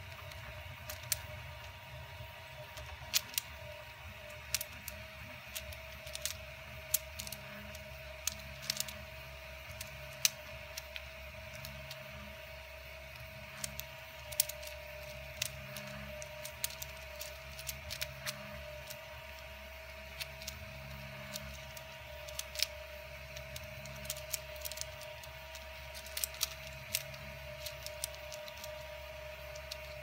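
Irregular sharp plastic clicks and clacks of a 3D-printed ABS fidget cube, a one-piece hinged flexagon cube, as its blocks are folded and flipped by hand, over a steady background hum.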